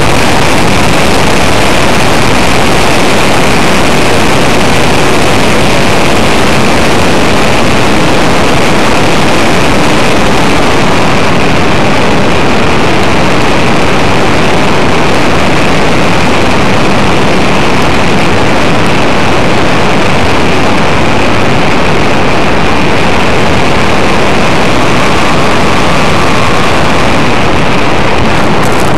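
Onboard camera microphone on a radio-controlled Cessna 185 model in flight: a loud, steady rush of motor, propeller and wind noise that never changes in pitch. Near the end the model is down on the grass strip, rolling out after landing.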